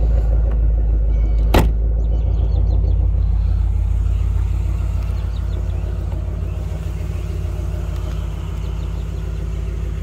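A 350 V8 idling steadily with a low, even rumble, easing slightly toward the end. One sharp knock sounds about one and a half seconds in.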